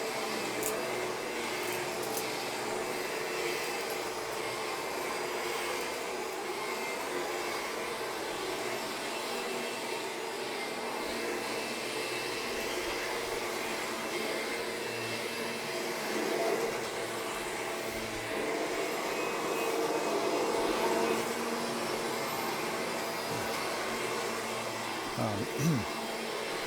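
Fan-forward upright vacuum cleaner running steadily as it vacuums carpet: a continuous rush of air with a steady hum of tones over it.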